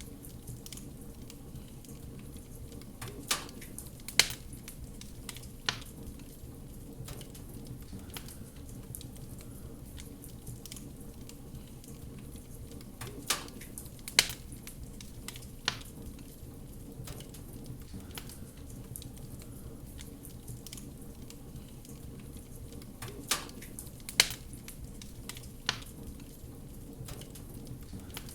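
Wood fire crackling in a fireplace: a steady low rustle of burning with sharp pops, grouped in threes that recur about every ten seconds.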